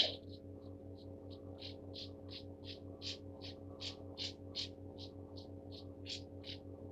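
Brush scrubbing back and forth on watercolor paper, faint scratchy strokes about three a second, over a steady low electrical hum.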